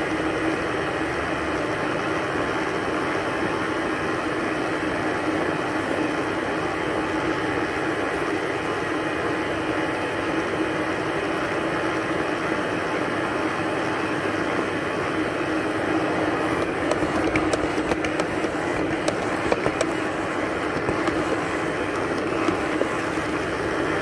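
A simple robot vacuum cleaner running: a steady motor and brush whir. From about two-thirds of the way through, a scatter of clicks and knocks sounds over it.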